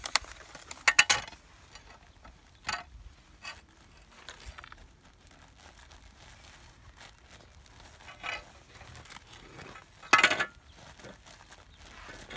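Scattered clinks and knocks of hard objects being handled, with a louder clatter about a second in and another near the end.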